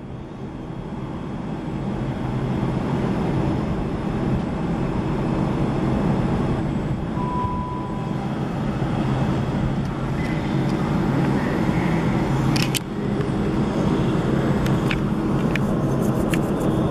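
Two coupled Class 444 Siemens Desiro electric multiple units pulling away from a standstill: a steady hum and rumble of motors and wheels that builds over the first few seconds as the train gathers speed. A few sharp clicks near the end.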